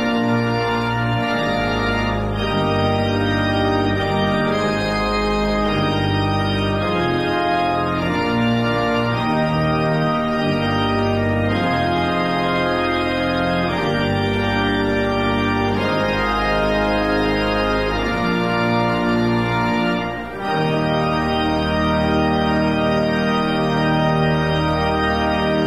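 Slow organ music: sustained chords changing about every two seconds, with a brief drop in level about twenty seconds in.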